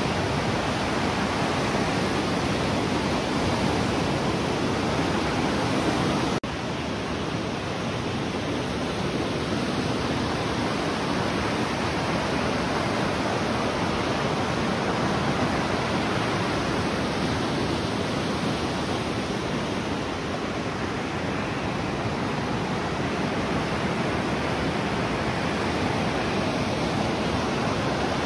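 Raging whitewater rapids of the Spokane River rushing steadily, a continuous loud wash of water noise. About six seconds in the sound cuts abruptly and carries on slightly quieter.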